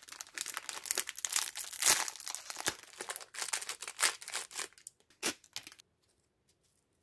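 Foil wrapper of a pack of Oreo cookies crinkling and tearing as it is peeled open by hand. The dense, irregular crackling stops shortly before the end.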